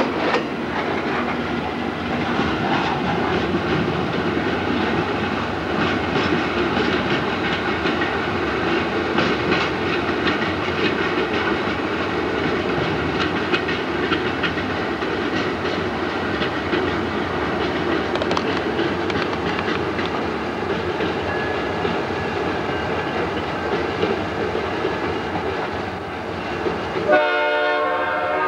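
Freight train of boxcars rolling past, wheels clicking over rail joints under a steady rumble. Near the end a diesel locomotive's air horn starts sounding, a chord of several tones.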